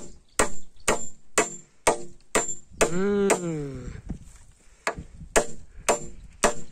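Claw hammer driving nails into the timber beams of a hut frame, about two blows a second, each with a short metallic ring. The blows stop for about two seconds in the middle, where a brief voice-like call is heard, then start again.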